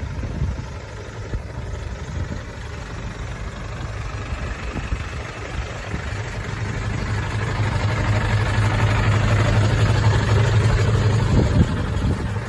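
Hino Ranger dump truck's J08C straight-six diesel engine idling steadily. It grows louder through the middle and drops back near the end.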